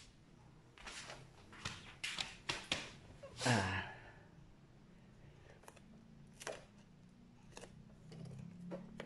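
Hands handling the wiring and the yellow cover sheet inside an opened battery casing: scattered small clicks and rustles, with a louder rustle about three and a half seconds in and a few sparse clicks after it.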